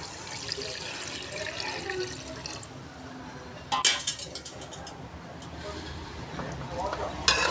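Water poured into a pot of braised pork offal, running and splashing into the sauce. A sharp clatter about four seconds in, and another near the end.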